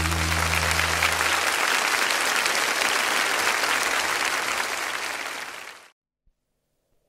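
Studio audience applauding as the song's last notes die away in the first second or so. The applause cuts off abruptly about six seconds in.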